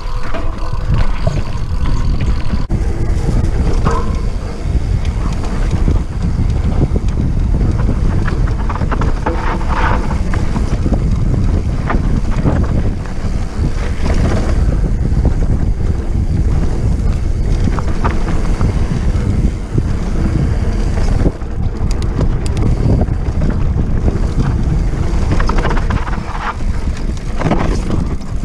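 Mountain bike descending a dry, rocky dirt singletrack: loud wind rushing over the microphone and tyre rumble, with scattered knocks and rattles as the bike goes over bumps and rocks.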